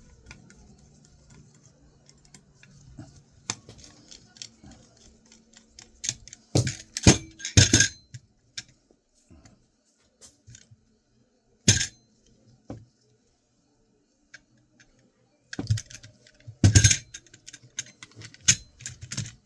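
Small metal hard-drive parts clicking, clattering and knocking as the drive is worked apart by hand and pieces are set down, in irregular clicks with two loud bunches of knocks in the middle and near the end.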